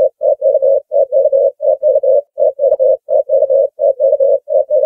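Ringneck dove cooing: short coos all on the same pitch, in quick clusters of three or four, a cluster about every three-quarters of a second.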